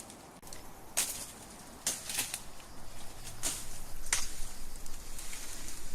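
Footsteps crunching on a dry, gritty trail, about one step a second and uneven, from hikers walking with packs.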